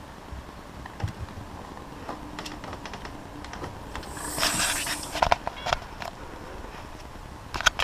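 Light footsteps and small clicks and knocks as a person walks down carpeted stairs and opens a door to the outside, with a brief rushing hiss about four seconds in and a couple of sharper knocks near the end.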